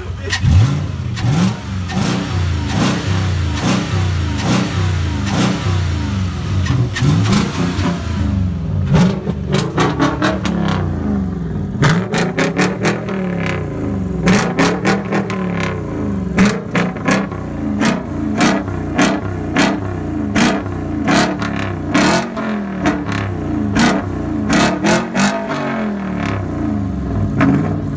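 Volvo's Yamaha-built 4.4-litre V8 (315 hp) being revved while parked. It is revved fairly steadily for the first several seconds, then blipped in short revs about once a second.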